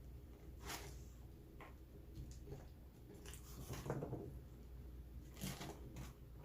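A person eating: close-up chewing and wet mouth sounds, heard as a handful of separate short sounds.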